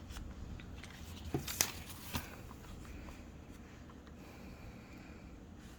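Paper cut-outs being handled on a table: a few light taps and clicks in the first two seconds, then faint rustling, over a low steady hum.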